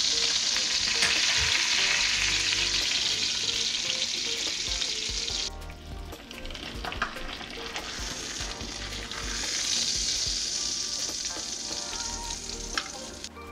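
Trout fillets sizzling in butter in a cast-iron skillet. The sizzle falls away about five and a half seconds in and comes back a couple of seconds later.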